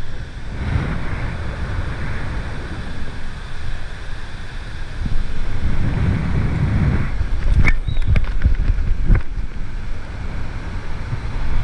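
Wind buffeting the GoPro's microphone in gusts as a bungee jumper falls and rebounds on the cord. A few sharp clicks come about two-thirds of the way in.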